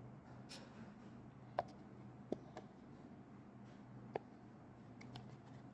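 A few faint, scattered clicks and taps of a spatula against a plastic bowl of yogurt, over a low steady hum.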